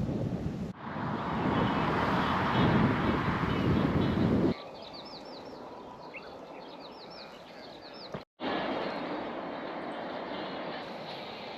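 Outdoor sound in several clips cut together. First comes a loud, steady rushing noise. Then a quieter stretch where a bird sings a run of short, high, quick chirps. Near the end, steadier rushing noise returns after a sudden cut.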